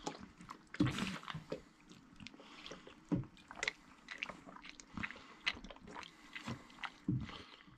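Newborn bottle calf sucking milk from a bottle nipple, with short irregular sucking and smacking clicks as it learns to take the bottle.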